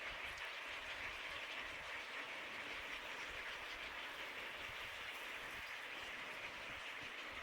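Steady, even outdoor background hiss with no distinct calls or knocks, strongest in the upper-middle range.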